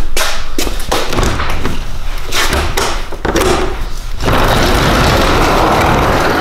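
Footsteps and knocks as someone walks out through a garage door, with handling thumps on the microphone. About four seconds in, these give way to a steady rushing noise.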